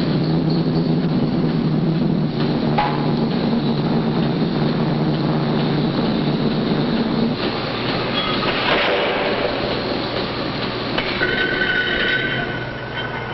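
Heavy machinery in a steel fabricating shop: a steady low hum that stops about seven seconds in, a short burst of noise about nine seconds in, and a high metallic squeal near the end.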